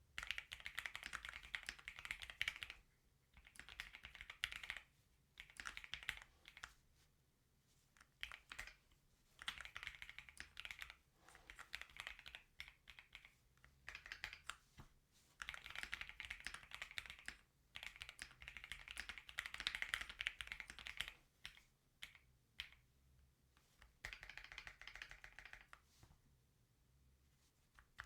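Typing on a Keychron Q6 Max full-size mechanical keyboard with Gateron Jupiter Red linear switches and Cherry-profile PBT keycaps: runs of rapid keystrokes lasting a second or three, broken by short pauses, with a few single key presses near the end.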